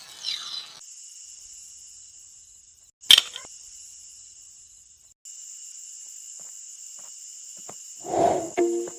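Steady high-pitched insect chirring, cut off and restarting twice, with one sharp loud click about three seconds in and a short rustling burst near the end.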